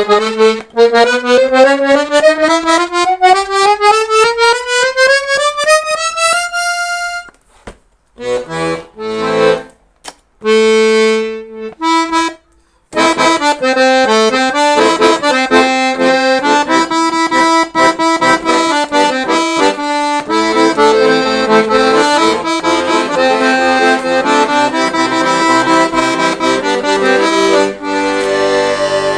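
Weltmeister Seperato accordion being played. A rising scale runs through the first seven seconds and ends on a held note. A few short, separate notes and chords with pauses follow, then continuous playing of a tune with chords from a little before halfway on.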